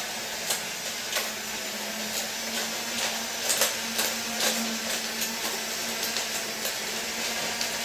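Toy Disney monorail playset trains running on their track, a steady small electric motor hum with irregular light clicks from the wheels on the track.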